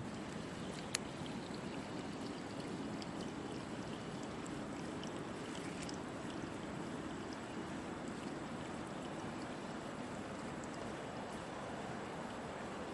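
Water running steadily with an even rushing sound, with a small click about a second in.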